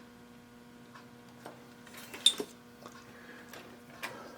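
Light metal clicks and taps from adjusting a boring head on a milling machine, the sharpest a little past halfway, over a steady low electrical hum.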